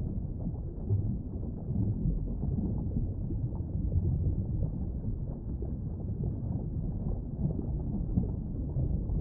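Muffled, steady low rumble of underwater noise picked up by a submerged camera, with faint irregular crackles and small knocks.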